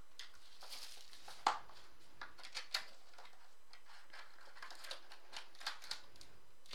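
Foil trading card packs and their cardboard box rustling and crinkling as hands pull the packs out, in a run of small scattered ticks, with one sharper click about a second and a half in.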